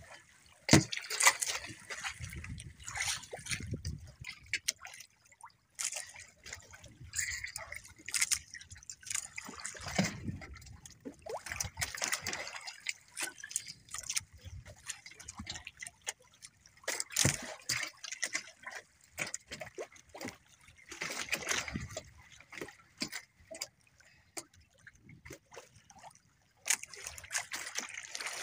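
Water lapping and sloshing against the hull of a small outrigger boat in uneven bursts, with a few sharp knocks against the boat.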